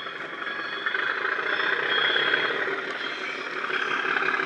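Bachmann Class 37 model's LokSound sound decoder playing the English Electric diesel engine sound through a small EM1 speaker in the fuel tanks. The sound gets louder about a second in as the unseen locomotive approaches.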